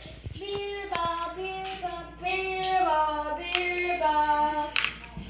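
A child singing a short tune in held, stepping notes, with a few sharp clicks over it.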